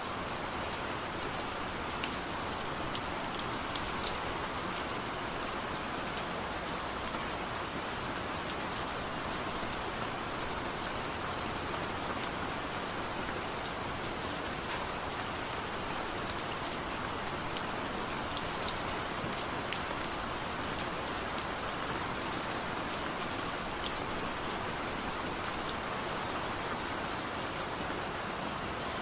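Steady rain falling, an even hiss with scattered sharp drop-ticks throughout.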